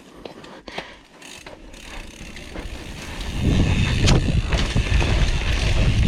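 Scott Voltage FR 710 mountain bike riding down a rough trail: a few light clicks and rattles at first, then the sound builds from about two seconds in into a loud, continuous rumble of tyres and frame over rough ground, with wind on the microphone, as speed picks up.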